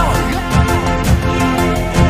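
Background pop song with a steady beat, an instrumental stretch between sung lines.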